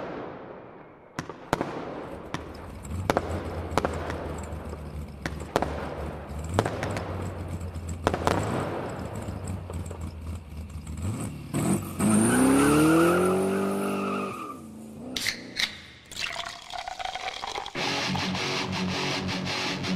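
A run of sharp bangs and cracks over a low hum, with a rising whistle-like tone about twelve seconds in and two more sharp bangs soon after. Guitar music starts near the end.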